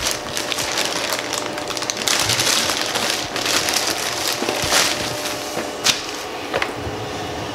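Black plastic poly mailer bag crinkling and crackling as it is torn open and a boxed kit is pulled out of it, with a few sharp clicks from the box being handled near the end.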